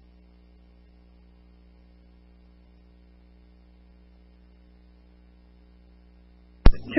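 Faint, steady low electrical hum on a police radio recording between transmissions. Near the end a sharp click as a radio transmission opens and a voice begins.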